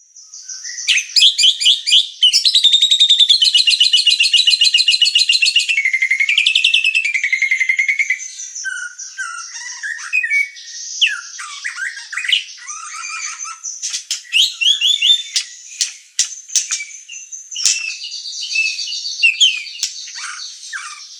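White-rumped shama (murai batu) singing in full song: a long, loud run of rapidly repeated notes in the first few seconds, then a varied string of whistles, chirps and sharp notes.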